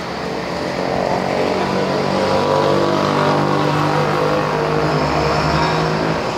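A motor vehicle engine running steadily with an even pitch, growing louder over the first couple of seconds and easing off near the end.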